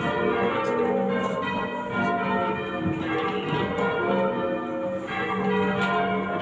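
Change ringing on a medium-weight ring of six church bells, about 11 cwt tuned to F, cast in 1649 and 1706. The strikes follow one another continuously in an overlapping ringing stream. The bells are noticeably out of tune and need retuning.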